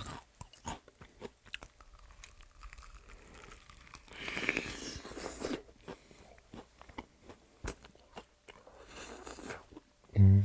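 Fried chicken being bitten and chewed: the crisp coating crunches and crackles, with a longer run of crunching about four seconds in and another shortly before the end.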